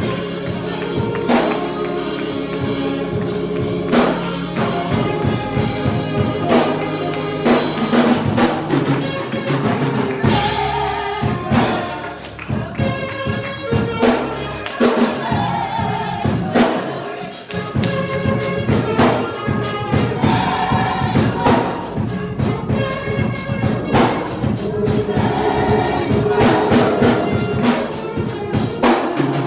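Live gospel music: a choir singing over a steady percussion beat.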